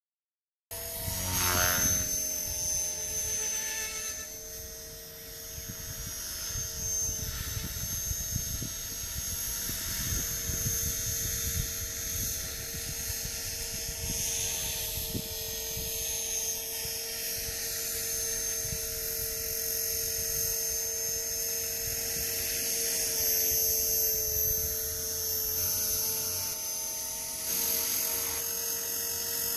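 Blade 450 3D electric RC helicopter in flight: its electric motor and spinning rotor give a steady high-pitched whine, its pitch wavering slightly, over an irregular low rumble. The sound cuts in abruptly under a second in.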